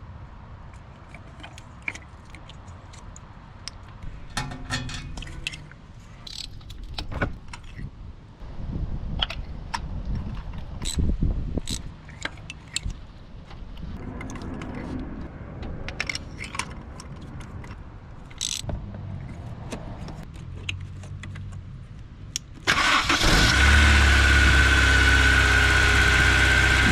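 Scattered clicks and knocks, then about 23 seconds in the Honda S2000's four-cylinder engine starts and settles into a loud, steady idle.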